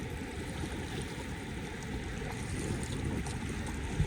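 Steady rush of fast-running river water, heaviest in the low end, with one brief knock near the end.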